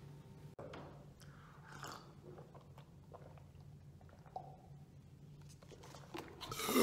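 Sips and swallows of water from a paper cup, with small wet mouth clicks and cup noises over a low steady hum. A much louder mouth sound starts right at the end.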